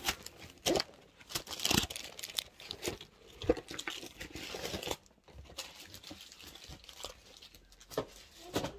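Keyboard packaging being torn and crumpled by hand: irregular rustles, crinkles and knocks, busiest in the first half and thinning out about halfway through.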